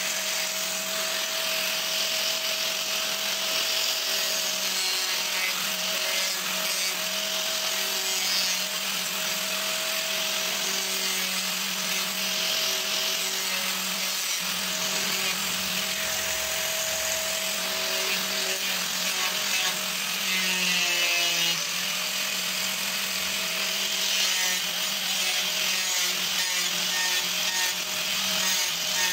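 Handheld angle grinder running steadily, its abrasive disc grinding and shaping a small piece of wood into a spatula: a constant motor whine over the hiss of the disc on the wood.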